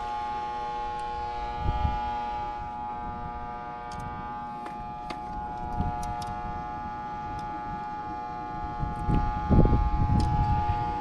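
A steady hum made of several held tones, machine-like and unchanging, with a few low thumps near the end.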